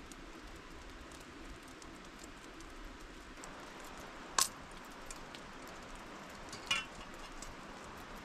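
Steady rain falling, with two sharp knocks or snaps about four and a half and six and a half seconds in, the second with a short crackle.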